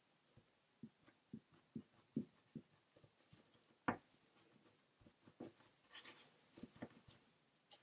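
Hands rolling and pressing chocolate-chip milk-bread dough into a log on a floured wooden board: faint soft taps and rubs, two or three a second, with one sharper knock about four seconds in.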